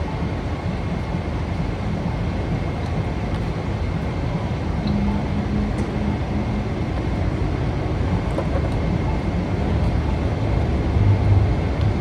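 Steady low rumble of heavy engines and city traffic, with a thin high whine running under it; it grows a little louder near the end.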